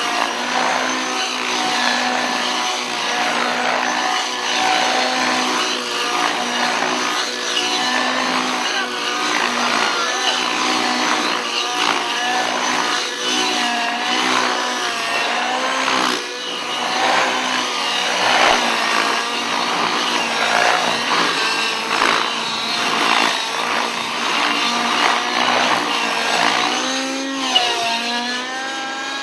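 Engine-powered radio-controlled model helicopter running in flight, the whine of its engine and rotor rising and falling in pitch over and over.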